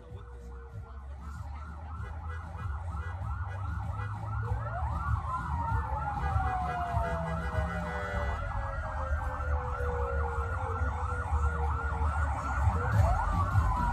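Several emergency-vehicle sirens at once: a fast yelp repeating about four times a second, with slower wails falling in pitch over a few seconds, over the low rumble of vehicle engines. The sound grows louder as the vehicles approach.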